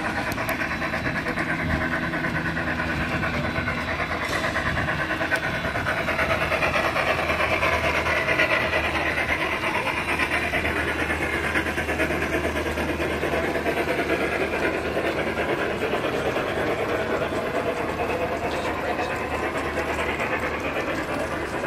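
Indistinct chatter of onlookers around a G-scale garden railroad, mixed with the running of the model trains on the layout.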